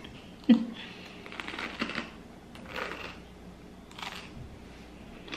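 Crisp crunching and crackling as a jalapeño stuffed with cream cheese and crushed Takis tortilla chips is bitten into, in scattered clicks and short bursts. There is a brief vocal sound about half a second in.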